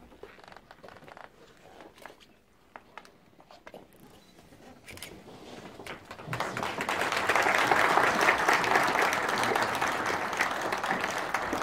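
Audience applauding, breaking out about six seconds in after a quiet stretch of small scattered clicks and rustles.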